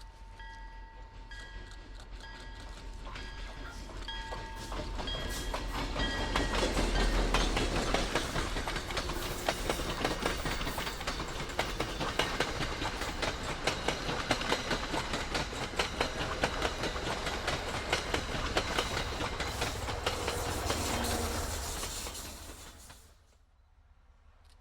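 MBTA commuter rail train sounding its horn as it approaches, then passing close by, loud, with wheels clicking over the rail joints; the sound cuts off suddenly near the end.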